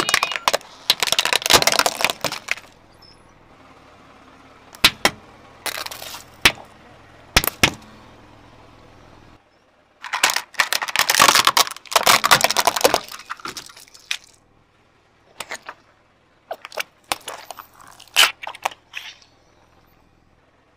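A car tyre rolling over plastic toys and squeeze bottles and crushing them: about four bursts of cracking, crunching plastic with sharp snaps, separated by short pauses.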